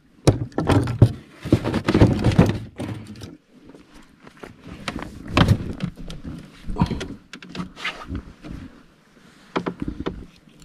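Irregular knocks and bumps on the hull of a small outrigger canoe, with rustling handling noise as the angler moves about and handles his rod and jig. The knocks are densest in the first three seconds, then come singly and more sparsely.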